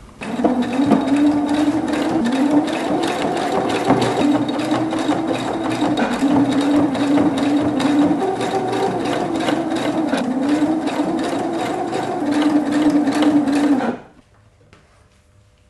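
Electric sewing machine running fast and steadily, stitching fabric, its motor hum wavering slightly in pitch. It stops abruptly about a second and a half before the end.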